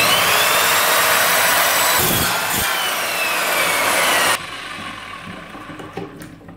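Parkside PKS 1500 A2 crosscut mitre saw running and cutting through wood, with a loud steady noise and a whine that falls in pitch as the cut goes on. The noise cuts off sharply about four seconds in, leaving a fainter sound that dies away.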